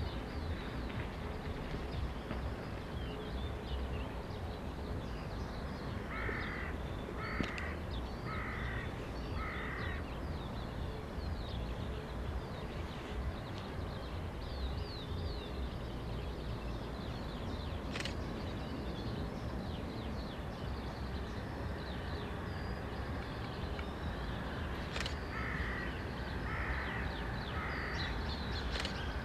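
A crow cawing: four caws about a second apart around six to ten seconds in, and three more near the end, over a steady low rumble with small birds chirping.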